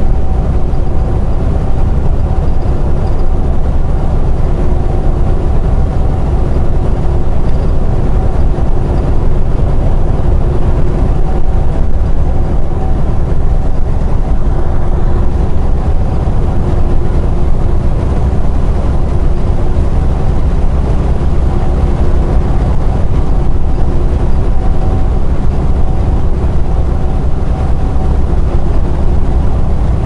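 Semi truck's diesel engine and tyre noise droning steadily inside the cab while cruising at highway speed, a low rumble with a faint steady hum above it.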